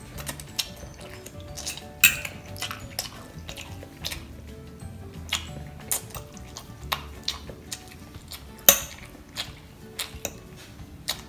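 Metal fork clinking and scraping against a glass baking dish as noodles are twirled up: repeated sharp clicks, the loudest about two seconds in and near nine seconds. Soft background music underneath.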